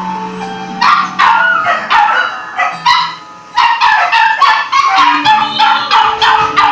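Small aspin dog barking in high, sharp yips: a few spaced barks at first, then a quick run of about three a second through the second half.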